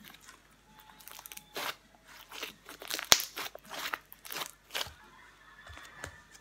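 Old slime being stretched, squeezed and folded in the hands, giving a run of irregular crackles and pops, with one sharp snap about three seconds in.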